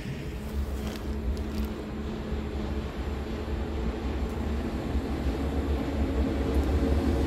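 PKP ET22 electric freight locomotive hauling tank wagons approaching: a low rumble with a steady hum, growing gradually louder.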